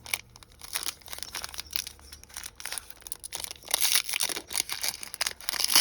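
Panini FIFA trading-card pack wrapper being torn open and crinkled by hand, an irregular run of crackles that grows louder about four seconds in and again near the end.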